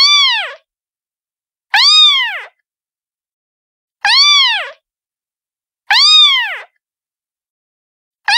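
A cat's meow, repeated about every two seconds with silence in between. Each meow lasts under a second and rises slightly before falling in pitch. The calls look alike from one to the next, like the same meow recording looped.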